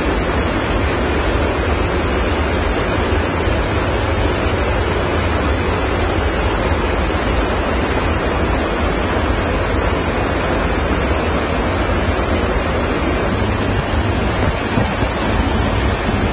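Steady rush of airflow and engine noise at the open rear cargo ramp of a transport aircraft in flight, with wind buffeting the microphone.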